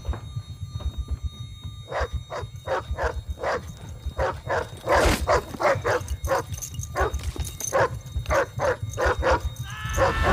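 Dogs barking over and over, about two to three barks a second, starting about two seconds in, over a low steady rumble.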